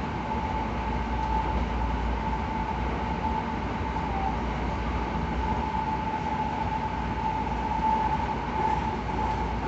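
Hankyu 9000 series electric train with Toshiba IGBT drive, running at speed and heard from inside the car: a steady rumble of wheels and running gear, with a high whine holding near one pitch throughout.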